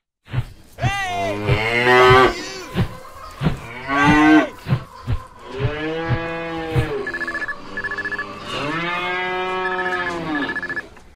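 Cows mooing: a run of four or five long, drawn-out moos one after another.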